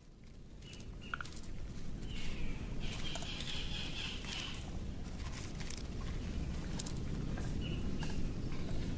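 Nature-film ambience under fiddler crab footage: a steady low rumble with scattered small clicks and scratching, and a couple of short high chirps.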